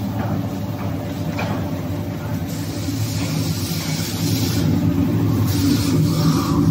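Toilet paper converting line running: a steady, dense mechanical drone from the log accumulator conveyor and log saw machinery.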